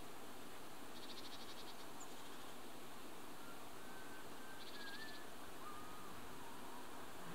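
Outdoor ambience over a steady hiss: short, rapid, buzzy trills recur about every three and a half seconds, with faint thin whistled notes in between, from small animals calling in the surrounding garden.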